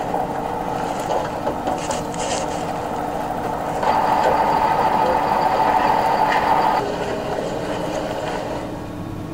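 Steady engine and road noise of a livestock transport truck, heard around the calves packed in its trailer. It grows louder for about three seconds in the middle, then settles back.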